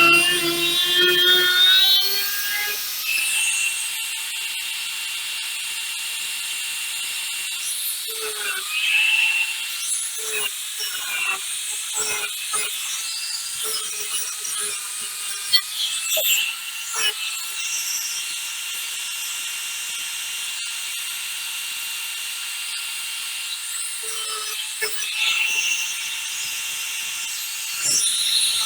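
A high-speed power grinder running with a steady whine, louder for the first couple of seconds, with scratchy bursts in the middle and again later as it is worked against metal to smooth a cut edge.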